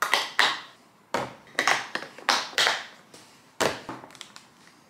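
Snap-lock clip lids being pressed and clipped shut on glass meal prep containers: a run of about eight sharp clicks and snaps over the first four seconds, with a few lighter ticks after.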